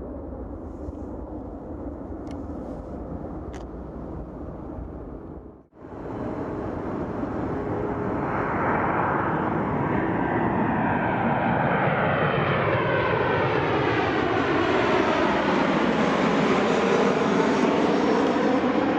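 Jet airliner engines passing close by, swelling louder after a cut about six seconds in, with the rush of jet noise sweeping down in pitch and then back up as the aircraft goes past. Before the cut there is a steadier, quieter jet rumble.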